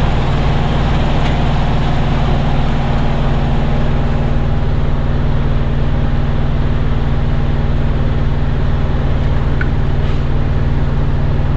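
Heavy truck's diesel engine idling steadily, a constant low hum with a few faint ticks.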